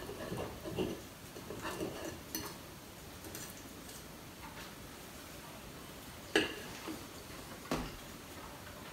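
Fork clinking and scraping on a plate while eating, in soft light taps for the first couple of seconds, then two sharper clinks about six and a half and eight seconds in.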